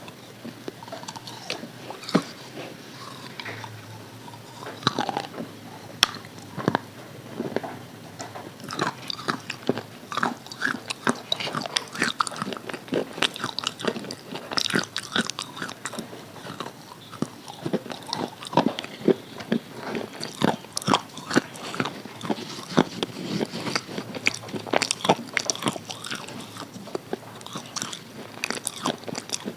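Crispy KFC fried chicken being bitten and chewed close to the microphone: a continuous, irregular run of sharp crackling crunches.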